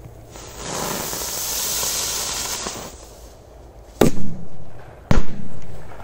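Ground-spinner firecracker (a 'rose with explosion') hissing as it burns and throws sparks for about two and a half seconds, then two sharp bangs about a second apart.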